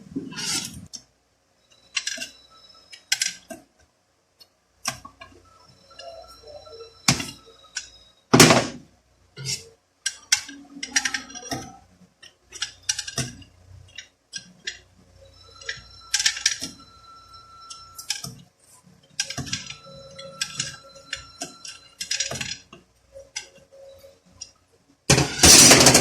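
Metal transmission parts being handled on a workbench: irregular clinks and knocks, some leaving a short metallic ring, with a louder clatter near the end.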